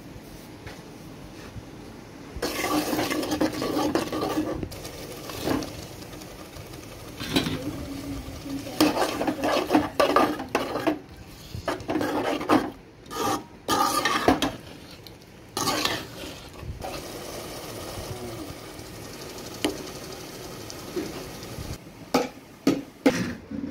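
A spatula stirring and scraping potato curry in a metal pot, in irregular strokes, with a few sharp clicks near the end.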